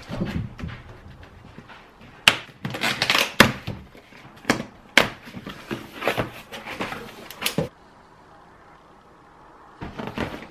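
A cardboard shipping box being opened by hand: packing tape tearing and cardboard flaps scraping and rustling, with several sharp knocks. The handling stops about three-quarters of the way through, and a little more cardboard handling comes near the end.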